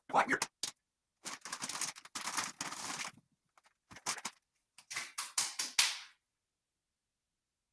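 Irregular short scrapes and knocks of hand work, with one longer rasping stretch, stopping about six seconds in.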